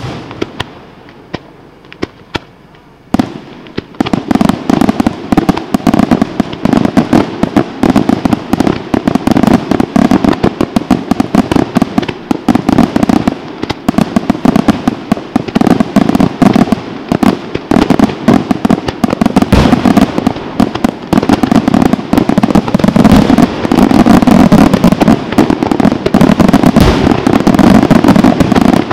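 Aerial firework shells bursting: a few separate bangs, then from about three seconds in a dense, continuous barrage of rapid reports.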